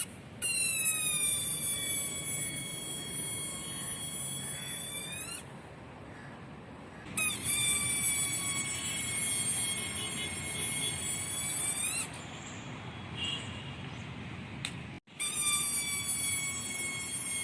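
Balloon helicopter toy whistling as air escapes from the balloon through its rotor, three separate high whistles of about five seconds each. Each starts a little higher in pitch, settles to a steady tone and cuts off abruptly.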